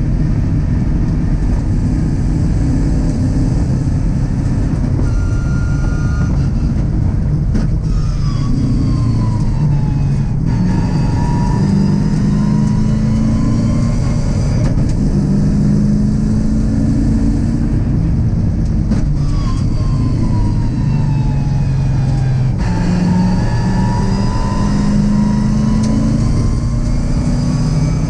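In-car sound of a Mazda MX-5 race car with a swapped-in GM LS V8, at speed on a circuit over steady wind and tyre noise. Twice the engine note falls as the car slows, then climbs again as it accelerates.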